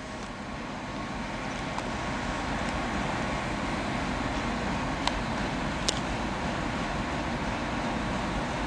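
The V16 diesel engine of a TEP70BS passenger locomotive running steadily at the platform, growing a little louder over the first two seconds. Two short, sharp clicks sound about five and six seconds in.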